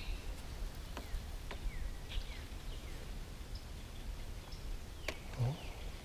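Quiet outdoor ambience with faint, short falling bird chirps now and then over a low wind rumble, and a couple of soft clicks about a second in and about five seconds in.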